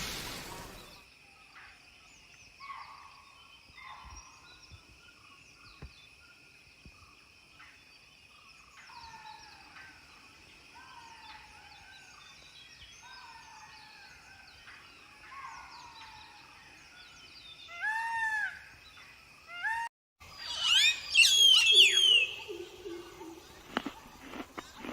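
Birds calling, short chirps and drooping whistles, over a steady high insect-like whine. After a brief cutout about 20 seconds in, a louder, denser run of bird calls sweeping up and down follows.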